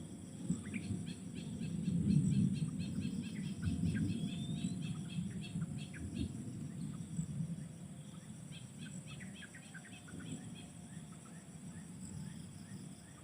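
Birds chirping in quick series of short notes over a steady high insect drone, with a low rumble that is loudest about two seconds in.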